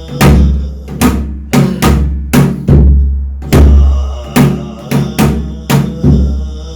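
Korean shamanic ritual (gut) percussion: loud drum strikes about twice a second in an uneven rhythm, each with a deep lingering boom, over a steady metallic ringing like cymbals or a gong.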